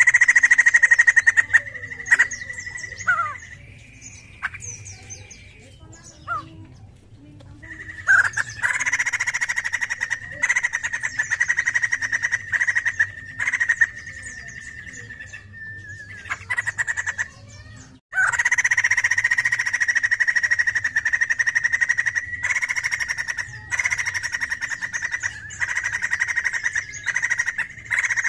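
White-crested laughingthrush (poksay jambul) singing in loud, long bouts of very rapid chattering notes held around one pitch. A quieter pause with a few scattered notes falls between the first and second bouts.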